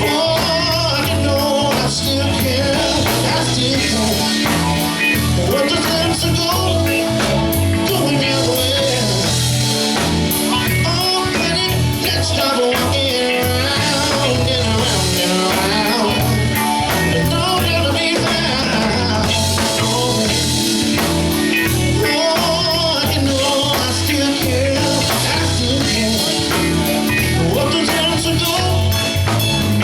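Live soul band playing an instrumental passage of a song, with drum kit, a moving bass line and lead melody over it.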